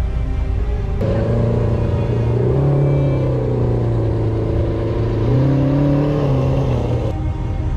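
Lamborghini Aventador V12 engine running at low revs as the car pulls away slowly. Its pitch rises a little, drops back, then rises again. The engine sound starts abruptly about a second in and cuts off abruptly near the end, with music on either side.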